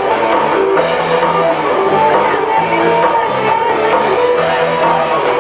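Rock band playing an instrumental passage: guitar strumming over a steady drum beat.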